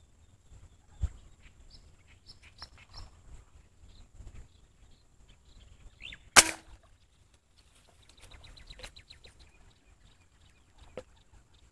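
A single sharp shot from an airgun firing a fishing dart into the pond, a little past halfway through. Birds chirp softly around it, with a quick run of chirps shortly after the shot.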